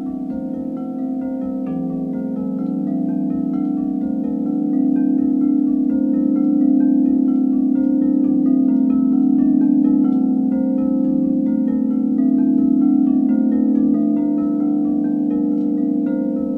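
White frosted crystal singing bowls ringing in sustained, overlapping low tones that swell slowly and hold, with a steady run of short, higher chiming notes above them.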